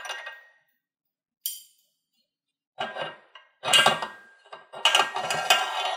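Hard kitchen items clinking and clattering in about five separate bursts, the last two the loudest.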